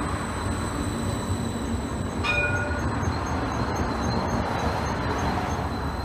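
Tram running with a steady rumble and a thin high electric whine; about two seconds in, a short ringing tone sounds once.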